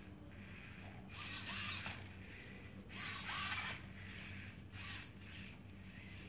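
Robi humanoid robot's joint servo motors whirring in three short bursts as it walks and turns: the first about a second in, the second about three seconds in, and a brief one near five seconds.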